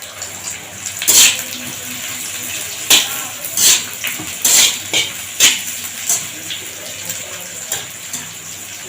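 Capsicums and chopped green chillies sizzling in hot oil in a wok, with a steady hiss, while a metal spatula scrapes and tosses them about eight times at uneven intervals.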